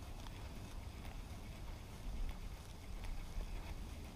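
Wind rumbling on the microphone, with faint, irregular clicking from a spinning reel being cranked to retrieve a lure.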